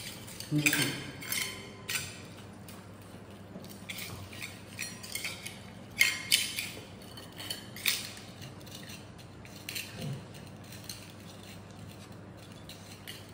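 Puppy eating from a stainless steel bowl: irregular clinks and scrapes of the metal bowl as it eats, with a few louder knocks about a second in and about six seconds in.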